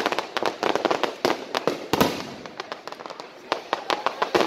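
Aerial firework shells bursting in quick, irregular succession: a rapid string of sharp cracks and bangs, with heavier bangs about two seconds in and again near the end.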